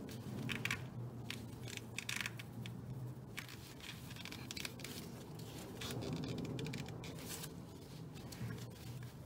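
Pliers and gloved hands working at a rubber air intake duct in a car's engine bay: irregular short scrapes, rubs and clicks of metal tool on rubber and plastic, over a steady low hum.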